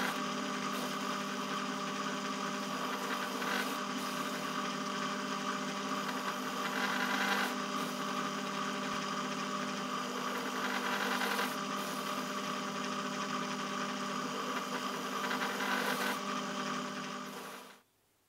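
Myford ML7 lathe running steadily under its electric motor, a constant machine hum with a steady whine, stopping suddenly near the end.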